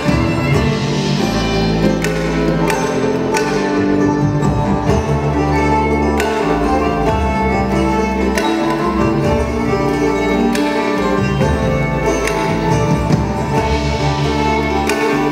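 Kamancheh, the Persian bowed spike fiddle, playing a melody live over a steady low bass accompaniment, with occasional sharp percussive accents.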